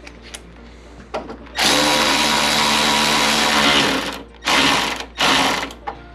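Cordless electric ratchet with a socket driving a headlight mounting bolt in: one run of about two and a half seconds, then two short bursts to snug the bolt.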